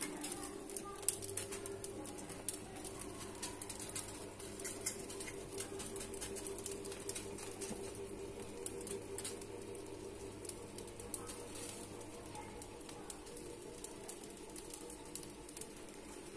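Wood fire crackling, with scattered sharp pops and spits as burning fat drips from a flaming lump of lard on a skewer onto a roasting suckling pig and the coals. A low steady drone runs underneath.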